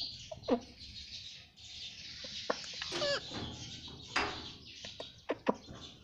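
Indian ringneck parakeet chattering: a steady scratchy mumble with several short falling squawks and one wavering pitched call about halfway through.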